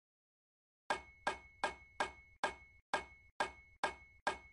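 Sound-effect clicks from an edit, a run of sharp evenly spaced clicks a little over two a second, starting about a second in, each with a brief ring, one for each comment that pops up on screen.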